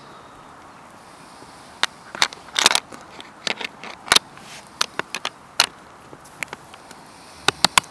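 Split-monoski attachment plate with cam lever being handled and fitted onto the board: a series of irregular sharp clicks and clacks of hard parts knocking together, with a short rattling cluster about two and a half seconds in.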